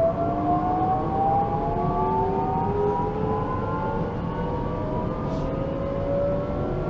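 DB class 442 (Bombardier Talent 2) electric multiple unit's traction motors and inverters whining under power as the train accelerates, heard from inside the passenger cabin: several tones climb slowly in pitch over a steady low rumble of running gear.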